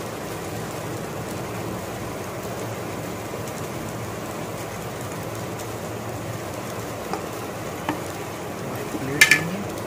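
Steady frying hiss from a pan of egg fried rice on the stove. Near the end come a few light clicks of a steel spatula against the pan, the sharpest one about nine seconds in.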